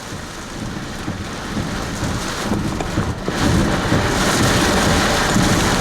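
Thunderstorm wind and rain: a dense rushing noise with a heavy low rumble, growing louder about three seconds in.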